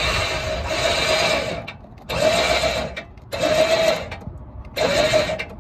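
Winch motor running in four short bursts, a steady whine each time, as it hauls a strap under load to pull a bent steering bar straight. The first burst is the longest, about two seconds, and the last is the shortest.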